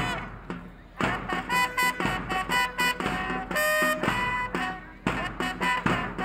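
Upbeat music with a regular beat. It is softer for the first second, and a single high note is held briefly about three and a half seconds in.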